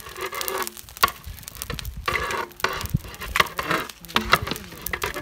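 A long-handled flat metal ladle scraping and stirring through a large metal pot of cooked biryani rice, turning the rice over, with several sharp knocks of metal on metal.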